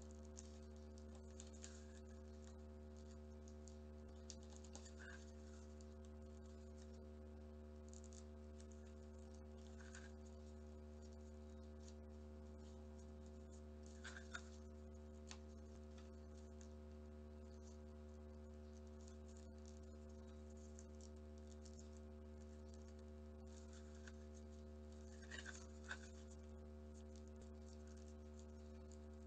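Faint rustles and crinkles of origami paper being folded and creased by hand, a few soft scratches scattered through, the clearest about halfway and twice near the end. A steady low hum runs underneath.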